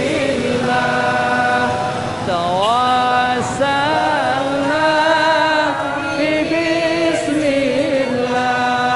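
Sholawat, Islamic devotional chant in praise of the Prophet, sung in long held notes, with a sweeping ornamented glide about two and a half seconds in.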